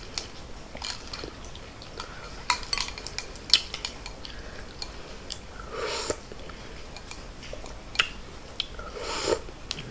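White plastic fork and spoon clicking and scraping against a large glass bowl of pho as noodles and shrimp are picked through, in scattered sharp ticks with two brief soft rustles about six and nine seconds in.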